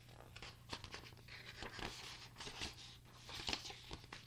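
Paper rustling with scattered soft clicks, a book being handled and its pages turned.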